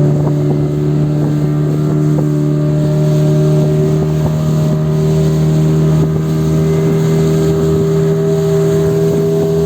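Motorboat engine running steadily under way, a loud even drone that holds one pitch throughout.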